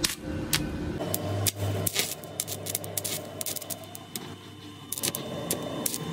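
Metal parts and hand tools clinking and knocking during lathe repair work: a string of sharp, irregular clicks spread over several seconds.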